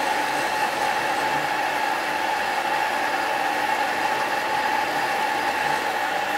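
Horizontal metal-cutting bandsaw running steadily as its blade saws through a 90 mm metal tube, a constant mid-pitched whine.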